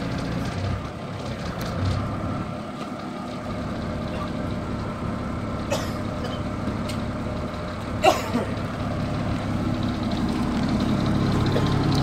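Nippon Sharyo DH408 pile driver's engine idling steadily, with two short sharp clicks about six and eight seconds in.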